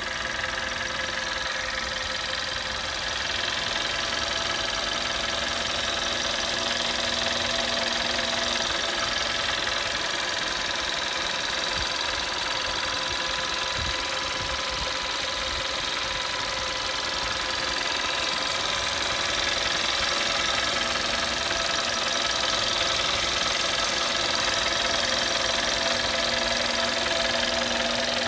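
Audi A3 8P's 1.4 TFSI turbocharged four-cylinder petrol engine idling warm, running steadily with the strange noise that the owner is trying to identify.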